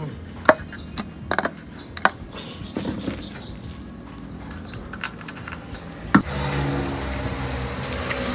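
Scattered clicks and knocks from handling a plastic bottle and bamboo piece as they are fitted together. After a sharp knock about six seconds in, a steady low mechanical hum sets in.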